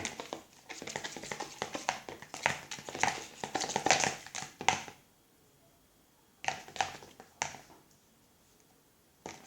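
Crackly, clicking handling noise of white-glue slime being worked with a spoon and containers. A dense run of crackles stops about five seconds in, and a shorter burst follows about a second and a half later.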